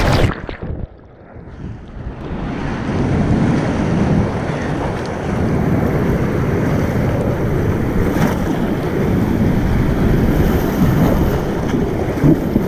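Whitewater rapid heard through a microphone that plunges underwater as an inflatable kayak flips: for about a second and a half the water goes dull and muffled. Then it surfaces into loud churning, splashing river water with wind buffeting the microphone, beside the capsized ducky.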